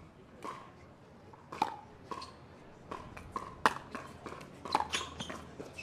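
Pickleball rally: a paddle striking a hard plastic pickleball and the ball bouncing on the hard court, as a run of sharp pocks roughly a second apart. The loudest come about one and a half, three and a half, and nearly five seconds in, with fainter knocks between.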